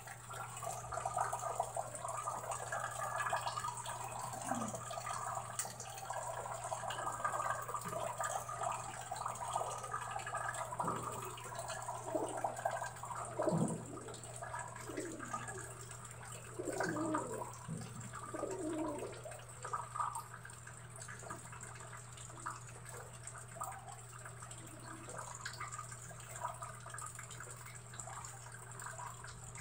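Rain falling on a wet concrete yard, with irregular drips and splashes into puddles, busiest in the middle. A steady low hum runs underneath.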